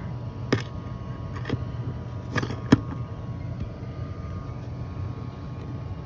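Lennox furnace blower running with a steady hum, the system operating with all zones calling. Over it come several clicks and knocks from handling a static-pressure probe at the sheet-metal supply plenum, the loudest a sharp knock a little under three seconds in.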